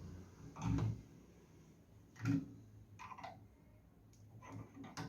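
A few scattered light clicks and knocks of pliers and metal parts as the feed handles of a benchtop drill press are tightened by hand.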